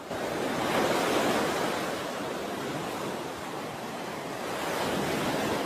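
Ocean surf: an even rushing wash of waves with no music under it, swelling about a second in and again near the end.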